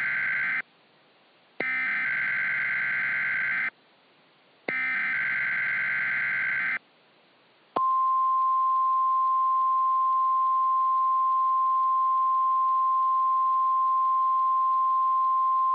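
Weather radio emergency alert: the end of one and then two more SAME header data bursts, harsh two-second electronic warbles with about a second of silence between them, then the steady 1050 Hz warning alarm tone, which starts about eight seconds in and holds. Together they signal the start of a new warning broadcast, here a winter storm warning.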